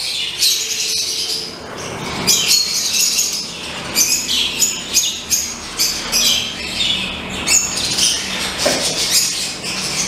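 A roomful of caged birds chirping and calling, many short high chirps overlapping without pause. The Gouldian finches in view are among them.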